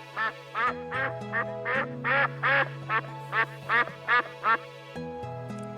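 A duck quacking in a quick run of about a dozen short calls, roughly three a second, over soft background music.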